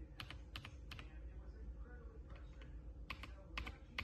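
Typing on a mechanical keyboard: about nine separate, irregular keystrokes. A quick cluster comes in the first second and another near the end, with a pause between.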